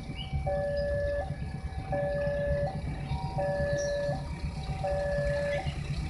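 Railway level-crossing warning alarm sounding a repeating two-tone electronic signal, a longer low note then a short higher note, about every one and a half seconds, the warning that a train is approaching. A low rumble of engines runs underneath.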